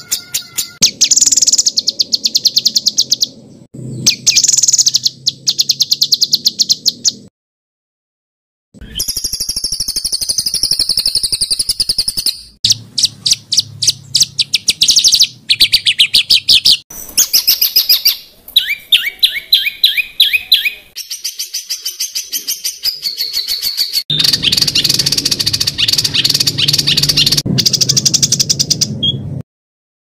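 Songbird song from a birdsong training recording: loud, high-pitched, rapid-fire trills and fast repeated notes, one short phrase after another. The song changes every few seconds and breaks off into silence twice, briefly about seven seconds in and again near the end.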